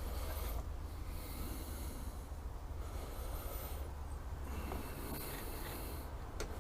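A person breathing close to the microphone, several slow hissing breaths about a second and a half each, over a low steady hum.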